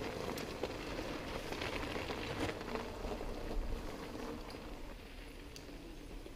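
Mountain bike rolling over a rough dirt and gravel trail: crackling tyre noise with scattered clicks and rattles, easing off somewhat in the second half.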